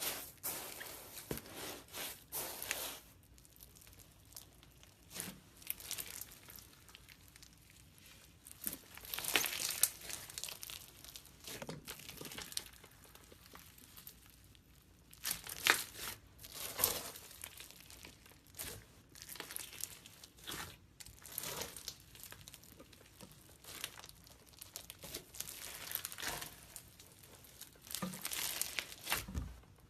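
Slime being squeezed, poked and stretched by hand, making irregular short squishes and pops, some alone and some in quick clusters.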